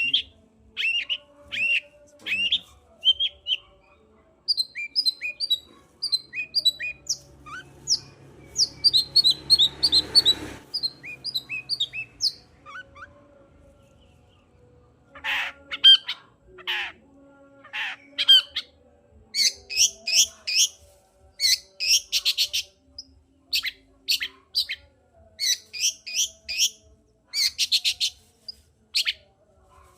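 Long-tailed shrike singing vigorously: repeated short chirps and whistled notes at first, then from about halfway through a string of harsh, rapid chattering calls. A brief low rumble comes about ten seconds in.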